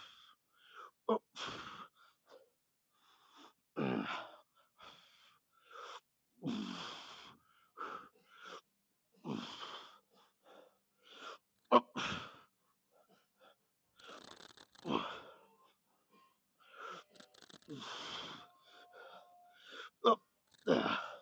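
A weightlifter's forceful exhales and grunts, one every two seconds or so with each rep of a heavy set. A single sharp knock about halfway through.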